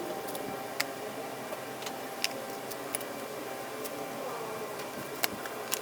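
Rusi RFi 175 scooter engine running, with irregular sharp ticking knocks over a steady hum. The knocking comes from a loose bendix (starter drive) that clatters because it keeps turning with the engine.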